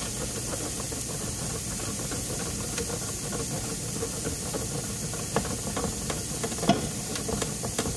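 Steady hiss of a pan sizzling on the stove, with a few faint scrapes and clicks as a block of smoked Gouda is grated on a steel box grater.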